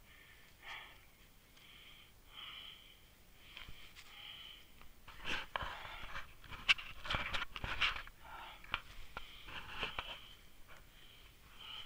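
A hiker breathing hard and evenly while walking uphill, about one breath a second. From about five seconds in, leaves and grass rustle and twigs crackle for a few seconds as the hiker pushes through brush.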